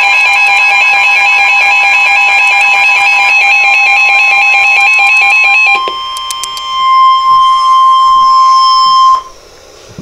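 Reecom NOAA weather alert radio sounding its loud warbling alarm for a flood warning, which stops just before six seconds in. A steady single-pitch warning alarm tone from the weather radio broadcast then runs about two seconds and cuts off near the end.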